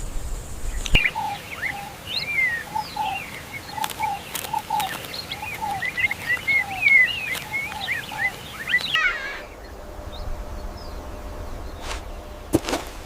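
Birds chirping and calling in quick rising and falling notes, with lower short whistled notes beneath. The birdsong stops abruptly about nine seconds in, leaving quieter ambience with a faint steady hum and a couple of sharp knocks near the end.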